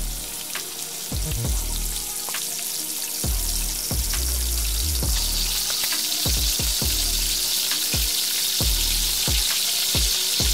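Batter-coated cauliflower deep-frying in hot oil, a steady sizzle that grows louder about halfway through while a slotted spoon turns the pieces.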